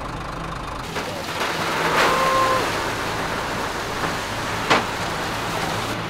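Concrete mixer truck's diesel engine running steadily, under a rushing noise that comes up about a second in. A short steady tone sounds about two seconds in, and there are a few sharp knocks, the loudest near five seconds.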